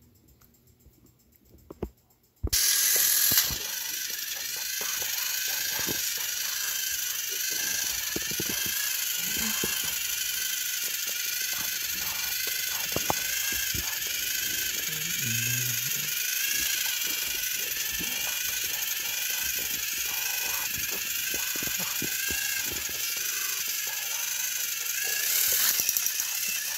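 Two battery-powered Thomas & Friends Gordon toy engines pushing nose to nose. Their small electric motors whine steadily, wavering in pitch, with a rattle of clicks from the gears and wheels. The sound cuts in suddenly a couple of seconds in, after near silence.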